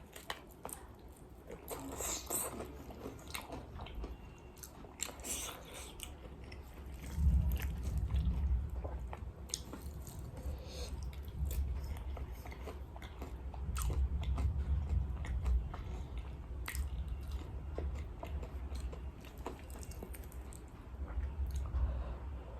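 Close-miked eating of fried chicken, with crisp crunching bites in the first few seconds, then steady, heavy chewing.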